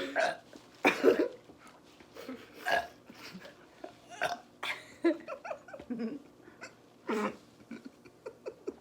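A person burping repeatedly: about eight short burps with brief pauses between, the loudest about a second in.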